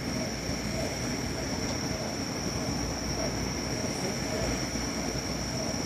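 Large hand-held tube firework (tezutsu/ōzutsu hanabi) spewing a fountain of sparks, a steady rushing hiss with a constant high whine above it.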